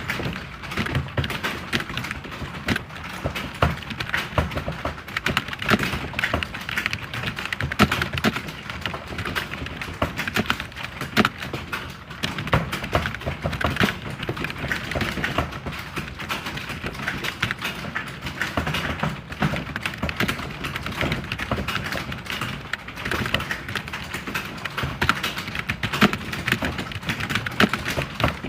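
Computer keyboard being typed on continuously: a fast, steady stream of key clicks.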